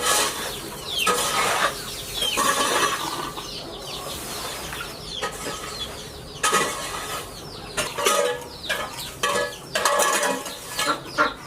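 Chickens clucking, many short calls one after another from several birds.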